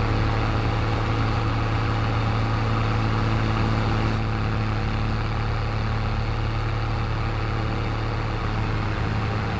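Farm machinery engine running steadily at constant speed, a low, unbroken drone.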